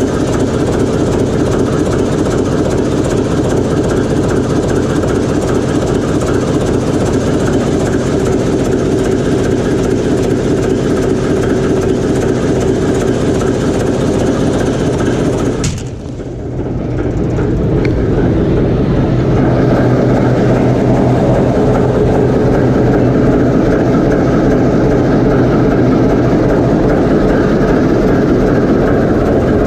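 TEM2UM shunting locomotive's six-cylinder diesel engine running steadily, heard close up inside its engine compartment. About sixteen seconds in the sound briefly drops and dulls, then comes back steady.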